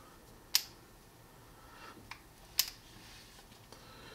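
Lenox 8-in-1 ratcheting screwdriver's mechanism giving a few sharp single clicks as it is worked by hand, the two loudest about two seconds apart with a fainter tick between.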